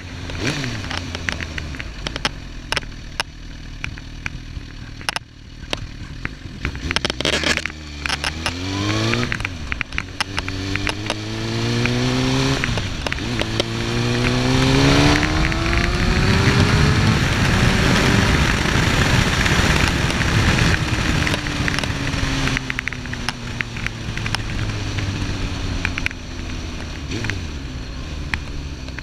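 Suzuki GSX-R1000's inline-four engine accelerating hard: the note climbs, drops at a gear change, and climbs again about three times in the middle stretch, then falls slowly as the bike rolls off and slows. Before the acceleration the recording is full of crackling and clicking, the faulty audio of this recording.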